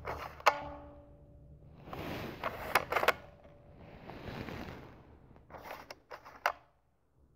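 Sharp plastic clicks and handling noise from a small handheld plastic gadget being worked. The loudest click comes about half a second in and is followed by a faint steady hum, and a quick run of clicks comes near the end.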